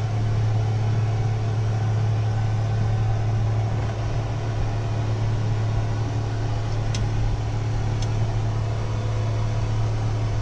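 Steady, even electric machine hum from the submersible's onboard equipment, heard inside its cabin. Two faint ticks come about seven and eight seconds in.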